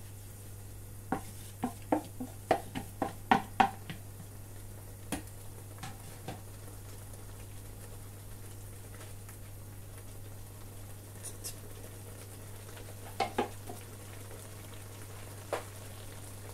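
Ground egusi seeds being stirred into simmering stock in a non-stick pot with a wooden spoon: a quick run of about eight sharp knocks against the pot between about one and four seconds in, then a few single knocks later, over a steady low hum.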